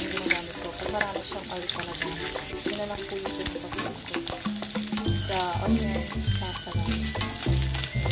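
Bacon strips sizzling and crackling in oil in a wok while tongs turn them. Background music plays over it, with a bass line entering about five seconds in.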